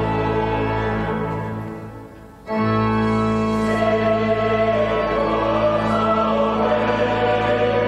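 Choir singing a Christmas carol with organ accompaniment. The sound dies away about two seconds in, then the choir and organ come back in sharply about half a second later.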